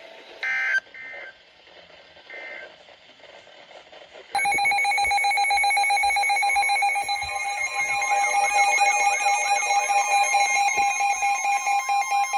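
Weather radio emergency alert tones: a few short electronic data bursts, then about four seconds in a loud, steady alert tone comes on. It is joined by a warbling tone and, near the end, a rapid pulsing beep, as several receivers sound the alarm for a new severe thunderstorm warning.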